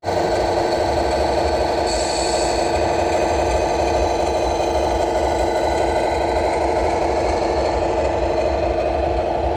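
Radio-controlled scale model truck running with a steady engine sound, a low rumble under a constant hum.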